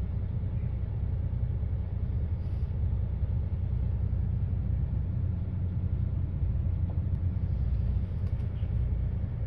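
Truck's diesel engine running at low revs, a steady low rumble heard from inside the cab.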